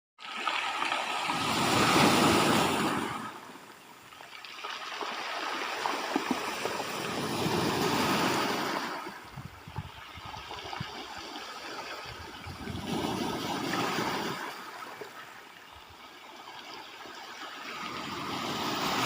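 Sea waves washing in and drawing back, each one swelling up and fading away, about one every five to six seconds.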